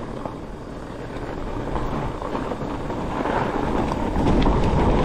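Fat bike riding over icy snow, its wide tyres rolling and wind rushing over the microphone, growing louder as speed builds, with light rattles and ticks from the bike.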